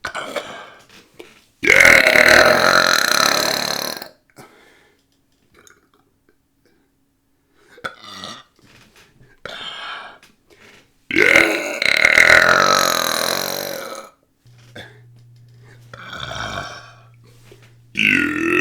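Two loud, long belches, each lasting about three seconds with its pitch sliding downward, one about two seconds in and another about eleven seconds in. A third belch begins near the end, and softer short sounds come between them.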